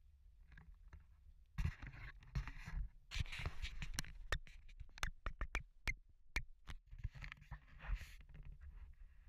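Wind buffeting a handheld camera's microphone, with a steady low rumble and rough gusts starting about a second and a half in. In the middle comes a quick run of sharp clicks and scrapes from the camera being handled.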